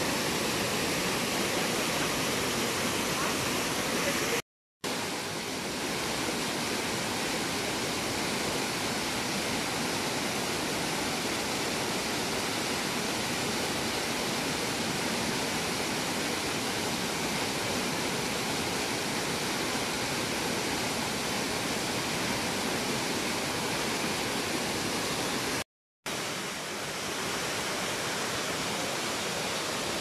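Mountain stream cascading down a rocky waterfall: a steady, close rushing of white water that cuts out twice for a split second.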